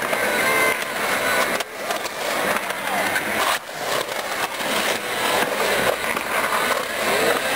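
Skateboard wheels rolling and carving on the concrete walls of a skate bowl, a steady coarse rumble that drops out sharply twice, about one and a half seconds and three and a half seconds in.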